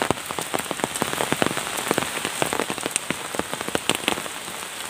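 Rain falling on wet ground: a steady hiss dotted with many sharp drop hits every second.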